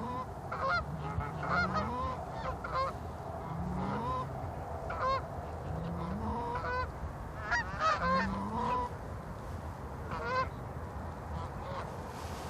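Geese honking repeatedly, many short calls overlapping, with lower rising honks recurring every second or two.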